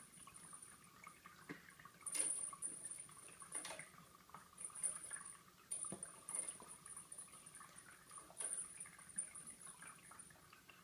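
Faint scattered taps and light rustles from a cat swatting at a dangling cat toy and shifting its paws on a wooden floor. The clearest taps come about two, three and a half, six and eight and a half seconds in.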